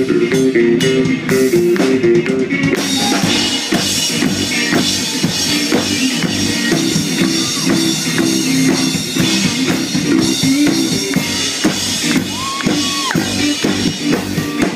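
Live rock band playing loud: an electric guitar repeats a riff over a drum kit, with cymbals coming in about three seconds in.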